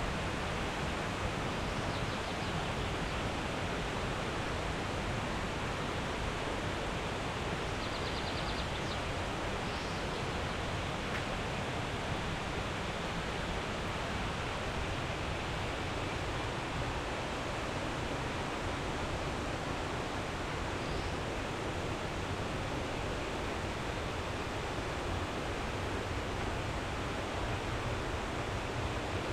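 Steady rush of falling water from a jungle waterfall, with a few brief faint high chirps over it.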